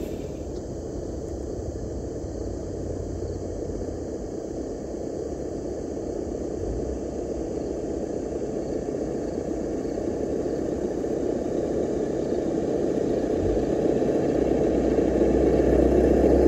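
Simulated engine sound played through a Traxxas TRX-4 RC crawler's ESS-Dual engine-sound speaker, running steadily and growing louder over the last few seconds as the truck comes closer, with a deeper rumble coming in.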